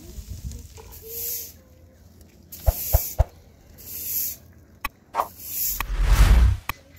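Short rustling hisses and a few light knocks of dishes and glasses being set down on a cloth on the ground, with a heavier rumbling rush near the end, the loudest part.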